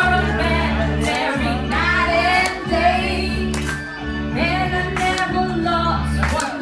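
Music: a song with singing over steady held bass notes.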